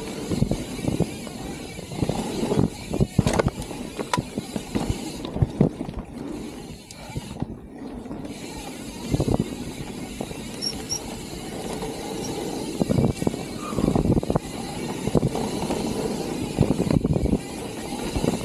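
Mountain bike descending a dirt trail: tyres rolling on dirt, with frequent sharp knocks and rattles as the bike goes over bumps.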